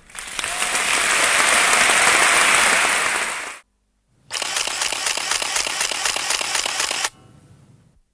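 Large concert audience applauding, in two bursts. The first runs about three and a half seconds and cuts off abruptly. After a short silence a second burst of steadier, evenly paced clapping follows and drops away sharply near the end.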